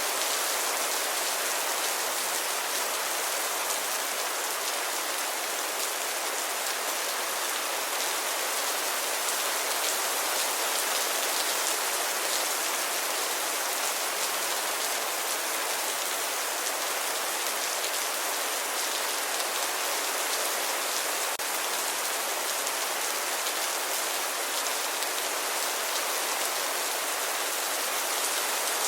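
Steady rainfall, an even hiss of many drops falling on a surface, with fine scattered patter and no change in strength.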